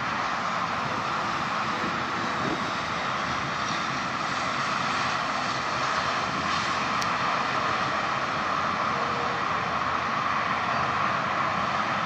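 A steady mechanical drone with a hiss over it, constant throughout, like an engine running or passing at a distance.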